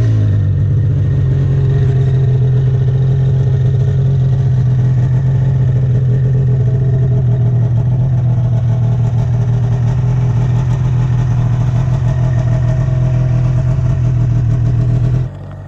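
Snowmobile engine running at a steady speed, a loud even drone that cuts off abruptly near the end.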